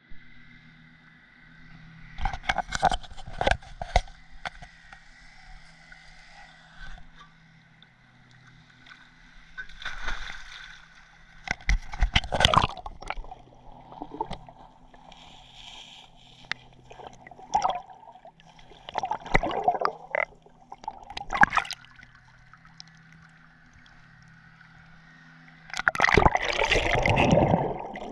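Swimming heard through a GoPro underwater: muffled splashing and bubbling in bursts every few seconds, the longest and loudest near the end, over a faint steady low hum.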